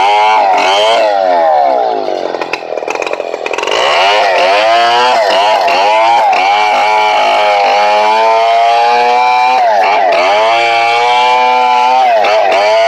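Stihl 070 two-stroke chainsaw cutting lengthwise through a mahogany log, its engine pitch repeatedly sagging under load and climbing back. About two seconds in the engine drops to a lower, quieter speed for a second or so, then is throttled back up.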